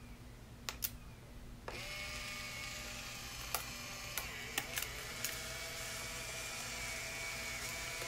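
Fujifilm Instax Mini 11 instant camera: two quick clicks of the shutter release just under a second in, then from about two seconds in a steady motor whir as it ejects the film pack's black protective cover sheet, the first sheet that comes out after new film is loaded, with a few small clicks along the way.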